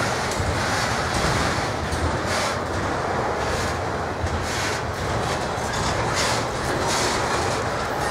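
Union Pacific intermodal train's double-stack well cars rolling past: a steady rumble and rattle of steel wheels on rail, with a high-pitched hiss of wheel noise that swells and fades about once a second.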